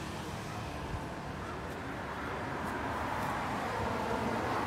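Steady outdoor background noise of distant road traffic, with one faint tap about a second in.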